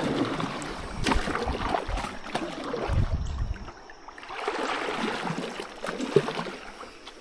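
Water splashing and sloshing around a kayak, with scattered knocks and handling noise from the boat and tackle. There is a low rumble about three seconds in and a sharp knock about six seconds in.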